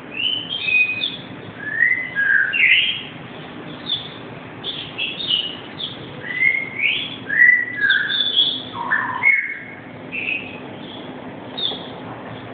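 Black-capped lory calling in a run of short whistles and chirps, the notes sliding up and down in pitch, packed closely at first and sparser after about nine seconds.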